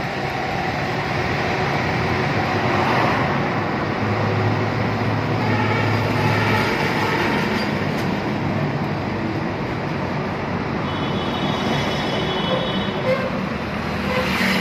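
Auto-rickshaw on the move, its engine running under steady road and wind noise in the open cab.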